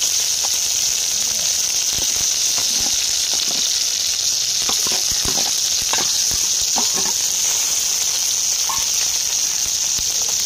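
Chopped onions sizzling steadily in hot oil in a kadai, a continuous frying hiss, with short knocks scattered through it as the pan is stirred.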